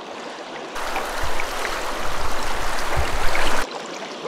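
Shallow stream riffle rushing steadily over stones. For about three seconds in the middle the wash becomes louder and closer, with low rumbles, then drops back abruptly.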